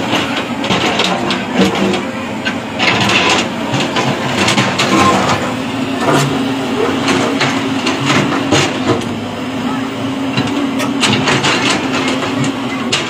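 JCB tracked excavator's diesel engine running steadily under load as it pushes and rolls boulders, with irregular knocks and clanks of the steel bucket against the rock.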